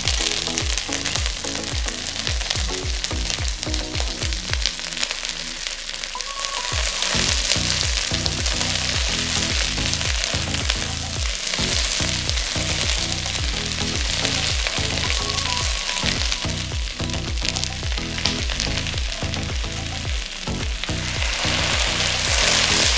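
Vegetables sizzling in hot oil in a wok as they are stir-fried, over background music with a steady beat.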